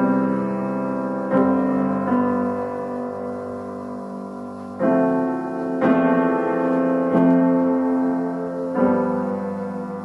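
Slow solo piano music, chords struck every second or two and left to ring and fade.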